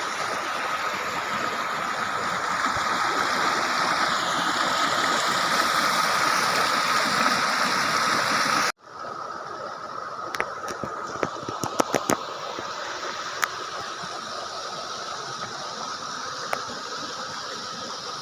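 Rushing stream water, a steady hiss of flowing water that cuts off abruptly about halfway and gives way to quieter running water with a few sharp clicks.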